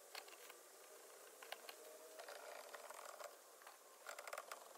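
Faint metallic clicks and ratcheting from a camping trailer's support leg being lowered and levelled, with a quick run of clicks near the end.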